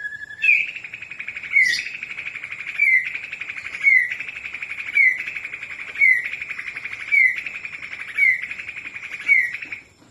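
Medan-type white-rumped shama (murai batu Medan) singing a long, buzzy rattling trill, broken by a short downward slur about once a second, about eight times over, before stopping near the end.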